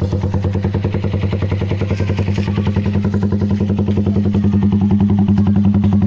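Suzuki Raider 150 Fi single-cylinder four-stroke engine idling through a Daeng Sai 4 aftermarket exhaust, running steadily with an even, rapid beat that grows slightly louder partway through.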